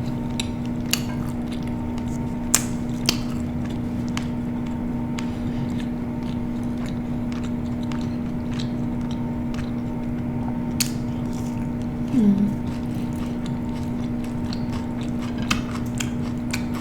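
A person chewing and biting food close to the microphone, with scattered sharp crunches. There is a steady electrical hum underneath, and a short low vocal sound falling in pitch about twelve seconds in.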